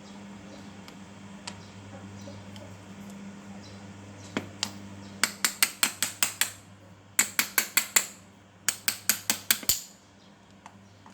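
Three runs of quick metallic clicks, about six a second and each lasting about a second, from hand tools working on a handheld cutting machine as it is taken apart. A low steady hum sits under the first half and fades out.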